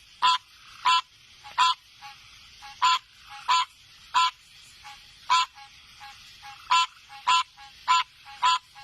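A frog calling over and over: a run of short, loud calls, about one to two a second, with fainter short notes in between.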